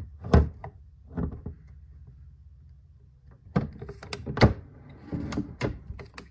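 Handling noise as an M1 Garand rifle is moved and turned over in a hard plastic rifle case: knocks of metal and wood against the plastic, with rubbing. One loud knock near the start, two softer ones about a second in, then a busy run of knocks and scrapes in the second half, the loudest just past the middle.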